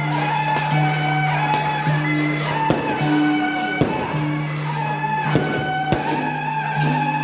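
Music: a melody over held low notes, with frequent short percussion strikes.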